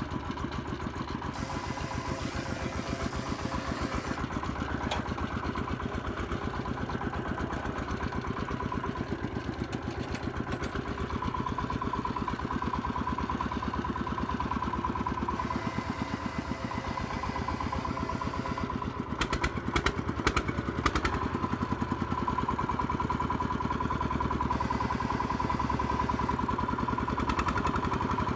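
A công nông farm cart's engine running steadily with a fast, even chugging and a steady whine alongside. A short run of clattering knocks comes about two-thirds of the way through.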